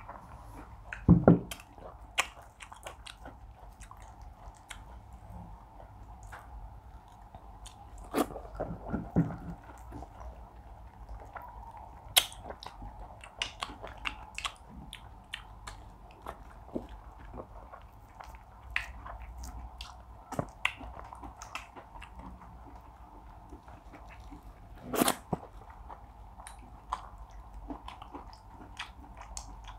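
Two people eating fish, okra soup and pounded yam by hand, heard up close: steady chewing and wet mouth clicks, with a few louder smacks. A faint steady hum runs underneath.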